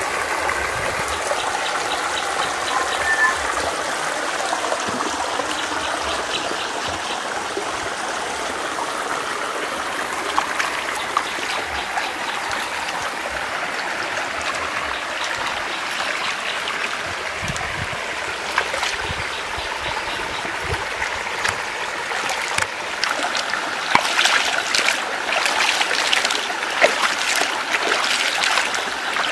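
Shallow stream water trickling and splashing as hands scoop it and splash it over legs and feet. The splashes come thick and fast in the last several seconds.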